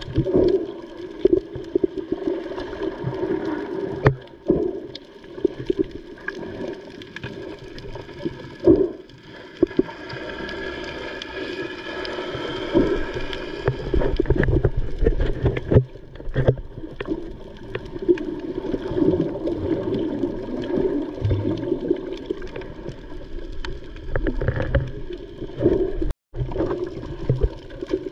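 Muffled underwater sound of sea water sloshing and bubbling around a camera just below the surface, with many irregular clicks and knocks, among snorkellers kicking with fins.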